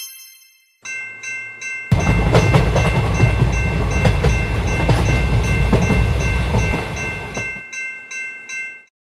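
Japanese railway level-crossing warning bell ringing, about three strikes a second. From about two seconds in a train passes loudly, its wheels clicking over the rail joints. The train is gone just before the end, and the bell rings on until it stops.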